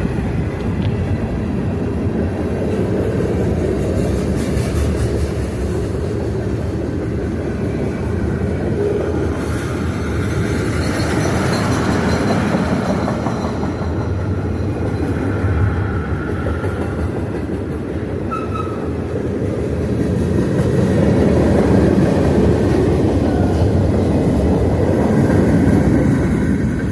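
CSX freight train rolling past on the far track: a steady loud rumble and clatter of wheels on rail, with a few brief faint high wheel squeals midway. It grows louder about 20 seconds in.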